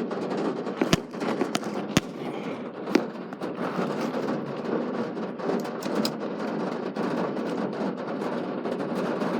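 Heavy rain falling steadily, a dense patter with sharp individual drops cracking through, the loudest about one, two and three seconds in.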